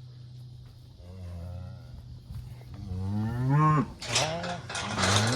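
Cattle mooing: a faint call about a second in, then louder, drawn-out calls that rise in pitch and overlap one another toward the end as several animals call together.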